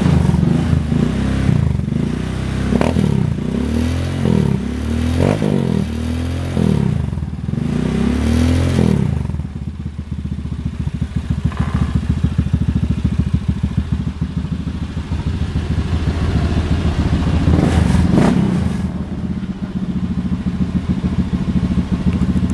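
Honda Scoopy's single-cylinder scooter engine, bored up to 53 mm and fitted with a BRT T1 camshaft, revved up and down repeatedly with the rear wheel spinning on the stand. At about nine seconds in it drops back to a steady idle, with one more short rev later on. This is a test run of the fresh bore-up.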